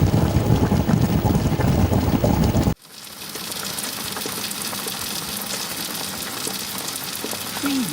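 Pan cooking with a dense, bass-heavy noise that cuts off abruptly about three seconds in; after a brief drop, food frying in hot oil takes over as a steady sizzle with scattered small crackles.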